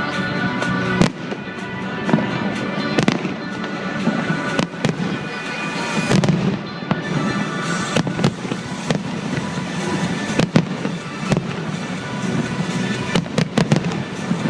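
Aerial fireworks bursting in an irregular series of bangs and crackles, with a quick cluster of reports near the end, over music playing along with the show.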